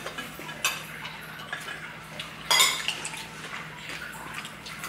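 Cutlery clinking against dishes and bowls: a few scattered sharp knocks, the loudest about two and a half seconds in.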